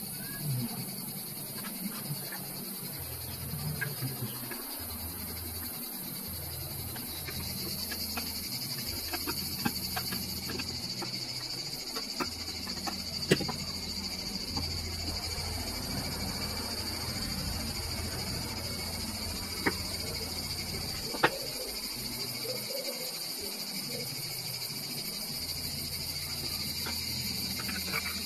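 Steady high-pitched insect chorus in the background, with a few small sharp clicks from hands handling wires and a small circuit board.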